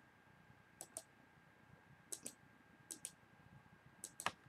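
Faint computer mouse button clicks, four pairs of quick clicks about a second apart, as the note is cut up with the scissors tool.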